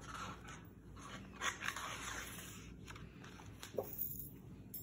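Soft rustling and handling noises of a paperback picture book as its last page is turned and the book is closed and turned over.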